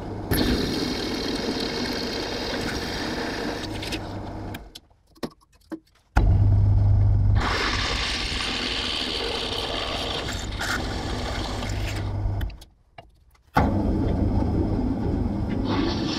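Drill press running with its bit cutting into a steel block: a steady motor hum under a grinding hiss from the cut. The sound stops twice for about a second each and starts again.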